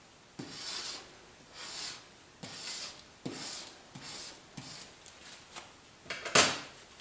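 Palette knife scraping oil paint off a mixing palette to clean it, in a series of short scrapes about one a second, with a louder scrape near the end.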